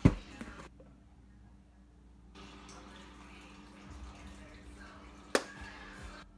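A sharp knock at the very start and a second one about five seconds in, from hands handling things right by the camera, over a low steady hum.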